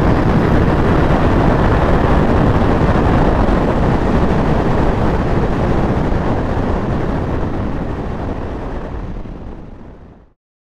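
Onboard riding noise from a Honda CBR500R motorcycle at speed: wind rushing over the microphone, with engine and road noise underneath. It fades out over the last few seconds and ends in silence.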